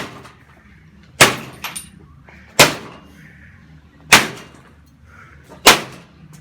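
Heavy blows striking a lawnmower engine, four evenly spaced hits about a second and a half apart, with small metallic clinks after some of them.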